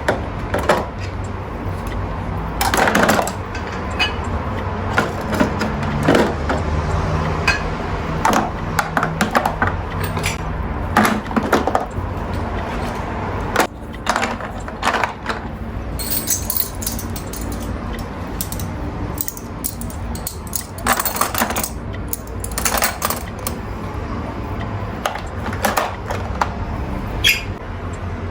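Household items being handled during chores: scattered clinks, clicks and knocks over a steady low hum.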